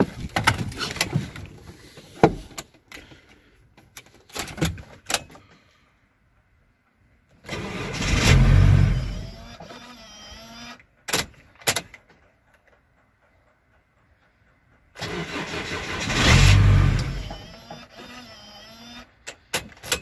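VW LT35's 2.5-litre five-cylinder diesel cranked twice on the starter, each try about three seconds long, without catching: a no-start, which the owner puts down to the immobiliser. Handling knocks and door clunks come before the first try.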